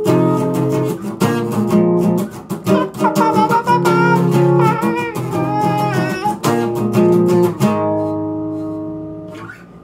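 Acoustic guitar strummed in a rhythmic chord pattern, then a last chord left ringing and fading away over about two seconds near the end.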